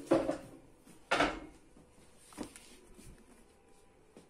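Stainless-steel standing table being moved and set down on its new base: two loud clattering knocks about a second apart, then a lighter knock.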